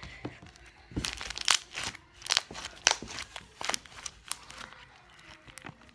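Slime being squished and stretched in the hands: a run of small wet clicks and pops, thickest in the middle and thinning out near the end.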